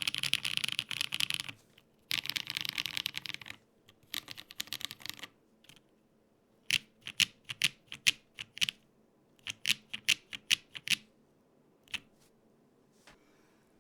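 Typing on a Gok 7V custom 75% mechanical keyboard built with an FR4 plate, no foam, lubed Holy Panda tactile switches and GMK keycaps. It starts with three quick runs of keystrokes, then slower, separate key presses, with a last couple near the end.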